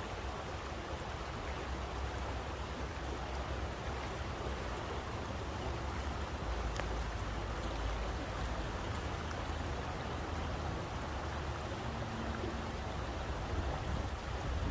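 Flowing water rushing steadily, a continuous even hiss over a deep low rumble, with a few faint ticks.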